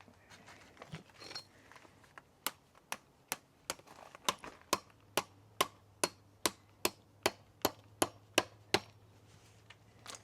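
A hammer driving a composite garden-edging spike into hard, gravelly road base: a run of about sixteen quick, even strikes, a little over two a second, starting a couple of seconds in.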